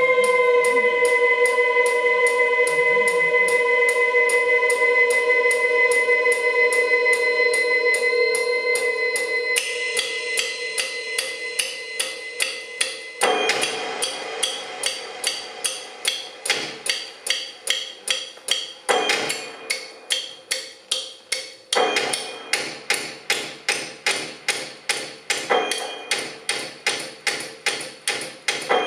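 Live electronic music: a held synthesizer drone, gliding slightly down at first, sounds over a fast, steady ticking beat and stops about halfway through. After that, short noisy synth blasts break in every few seconds over the ticking.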